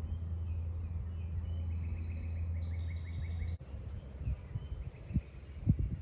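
Outdoor dawn field recording: a steady low engine drone from a passing vehicle or aircraft under birdsong, with one bird giving a quick trill of evenly repeated notes in the middle. The drone breaks off abruptly about three and a half seconds in, and irregular low thumps follow.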